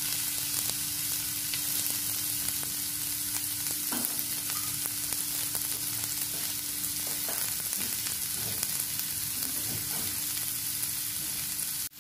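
Chopped red onion frying in olive oil in a nonstick pan: a steady sizzling hiss with small pops, the onion being sweated until it turns golden.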